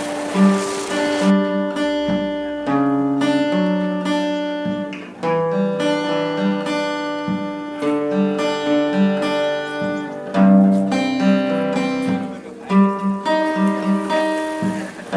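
Background music carried by an acoustic guitar, plucked and strummed notes in a steady melody.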